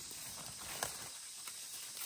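Light knocks, about one every three-quarters of a second, over a steady high hiss.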